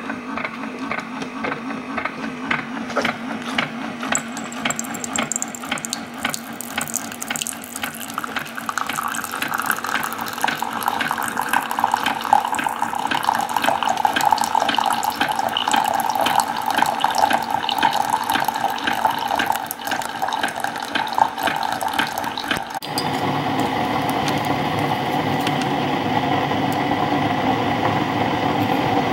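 Keurig 2.0 single-serve brewer dispensing a thin stream of hot water into a mug over a tea bag, a steady splashing pour. About 23 seconds in, the sound changes abruptly to a different steady noise.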